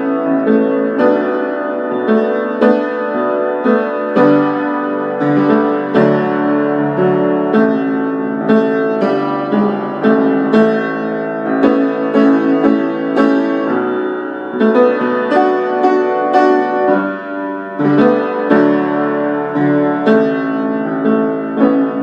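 Acoustic piano playing an instrumental interlude of repeated struck chords, with no vocals.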